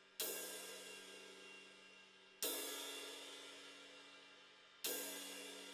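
20-inch Avedis Zildjian Ping Ride cymbal, which the owner dates to the 1960s, struck with a drumstick three times, about two and a half seconds apart. Each hit rings on and slowly fades before the next.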